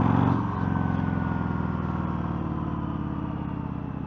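Motorcycle engine under way, a strong steady engine note with a brief dip about half a second in, then easing off and slowly getting quieter.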